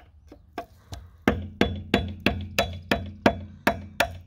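Rapid metal-on-metal strikes, about three a second, ringing briefly, driving a flat screwdriver against the steel sleeve of a wheel lock nut. The strikes grow loud about a second in. The work is chipping the loose sleeve back off the lock nut to bare the nut for a bolt extractor.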